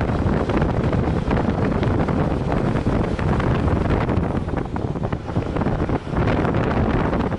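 Wind buffeting the microphone on a moving bus, over the steady rumble of the bus on the road.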